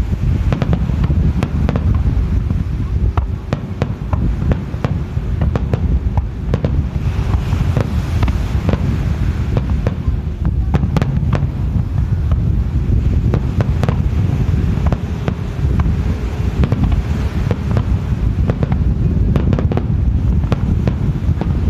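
Aerial firework shells bursting, with many sharp cracks and pops scattered throughout, under a heavy rumble of wind on the microphone.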